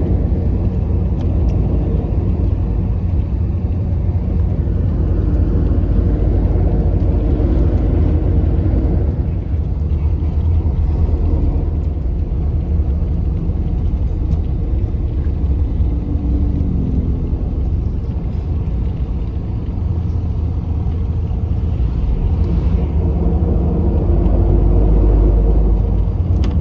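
Steady low rumble of a moving sleeper bus heard from inside its cabin: engine and road noise at cruising speed.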